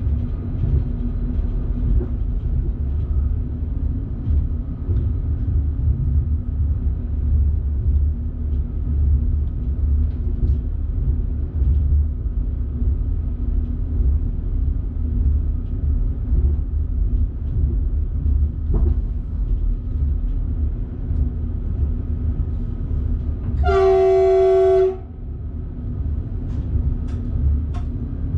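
Electric passenger train running with a steady low rumble heard from the driver's cab, with one short horn blast of about a second near the end.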